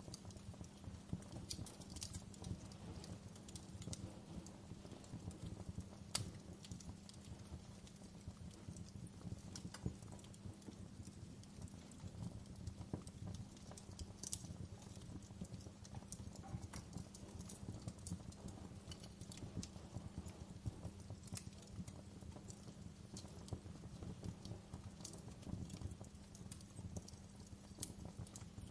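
Wood fire crackling in a fireplace: irregular sharp pops and snaps, a few of them louder, over a low steady rumble of the burning fire.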